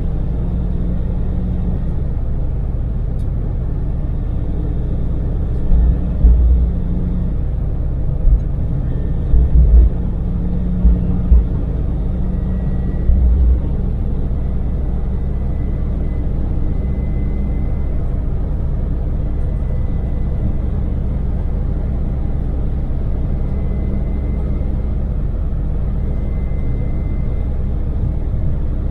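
Daewoo Damas microvan's LPG-fuelled three-cylinder engine and road noise while driving: a steady low drone, with several short low thumps between about six and fourteen seconds in.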